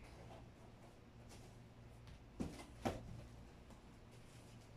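Two short knocks about half a second apart, over a faint steady low hum.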